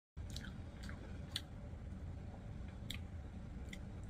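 Faint wet mouth clicks and lip smacks of someone eating, about five spaced irregularly, over a low steady hum.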